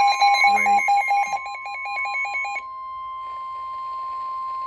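Weather-radio alert tone: one steady high tone near 1 kHz, the NOAA Weather Radio 1050 Hz warning alarm tone. For the first two and a half seconds a fast stepping, beeping alarm pattern from another device sounds over it, then stops, leaving the steady tone with a light hiss.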